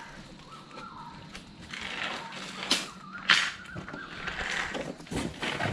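Small parts or packaging being tipped out and handled: scattered rustling with a few sharp clicks, the loudest about halfway through.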